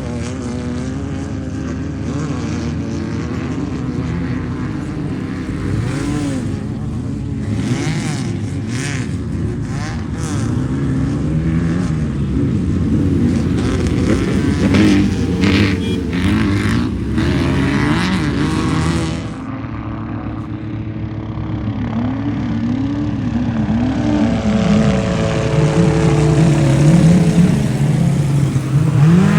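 Off-road race vehicle engines revving hard as they pass, the engine note repeatedly rising and falling with throttle and gear changes. The sound changes abruptly about two-thirds of the way through, and another engine then revs up and down loudly.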